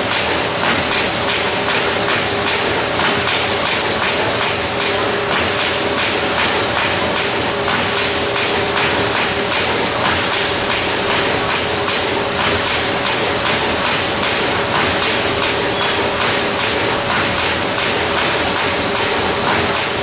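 Servo-driven Norpak HSi high-speed envelope inserter running: a steady mechanical clatter of rapid, regular clicks over a hiss and a steady hum.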